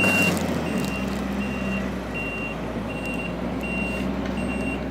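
Vehicle back-up alarm beeping at a steady, even pace, about seven single-tone beeps, over the low steady rumble of a running engine.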